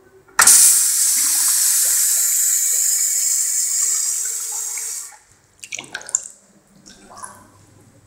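Urinal flushing from a push-button flush valve: a loud rush of water starts abruptly just after the button is pressed, runs steadily for about four and a half seconds and stops suddenly, followed by a few short knocks.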